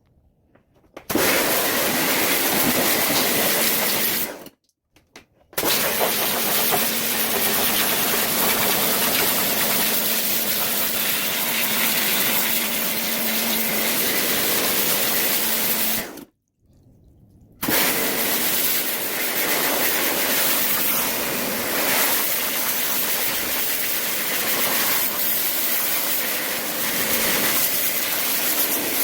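High-pressure water jet spraying steadily with a loud hiss and a faint motor hum, stopping abruptly twice and starting again, as dirty washing machine parts are power-washed.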